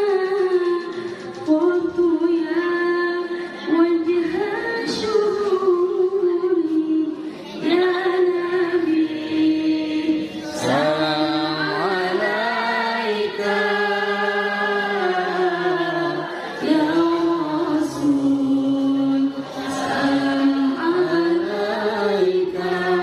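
A woman's solo melodic Arabic recitation in the tilawah style of a qoriah, sung into a microphone. She holds long ornamented notes with sliding turns, in phrases broken by short pauses for breath.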